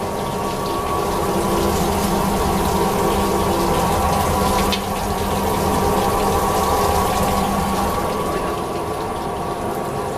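Water squeezer (squeezing dewatering machine for PP woven bags and film) running with a steady mechanical hum, with water gushing out of the pressed plastic and pouring down through the drain.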